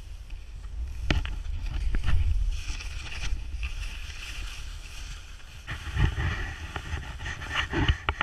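Skis hissing and sliding through soft snow while wind buffets the microphone with a low rumble. A few sharp knocks cut through, several of them near the end.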